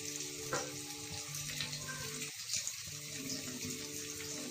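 Chopped onion, pepper and carrot frying in hot oil in a steel kadhai: a steady sizzle, with a faint low hum underneath.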